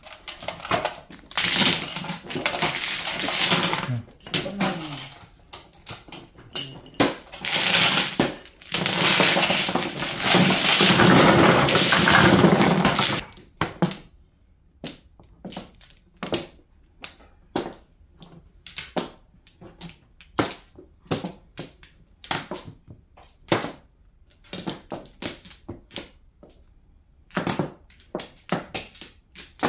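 Mahjong tiles clattering together in a dense run for about twelve seconds as they are swept and shuffled, then separate sharp clacks of plastic tiles being set down and discarded on the table.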